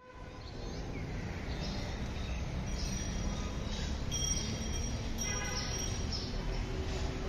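Outdoor city ambience: a steady hum of distant traffic, fading in over the first second, with birds chirping several times over it.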